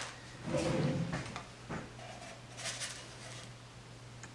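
Faint kitchen handling noises: a few short scrapes and light clicks of a metal spatula and a baking sheet.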